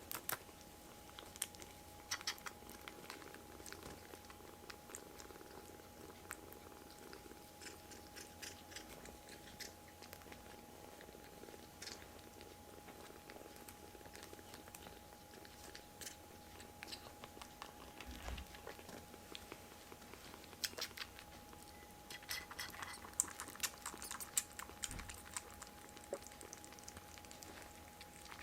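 Kittens chewing, a faint scatter of small mouth clicks that comes thicker about three-quarters of the way through, over a steady thin hum.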